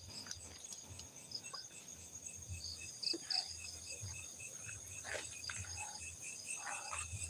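Crickets chirping steadily, a short high chirp repeating about three times a second, with faint low rumbles underneath.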